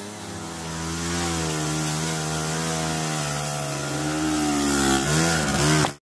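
Small engine held at high revs, its pitch wavering slightly. About five seconds in the revs dip and climb again before the sound cuts off abruptly.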